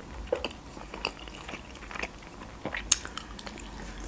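Close-miked chewing of a Georgian khinkali dumpling: irregular soft mouth clicks and smacks, with one sharper click about three seconds in.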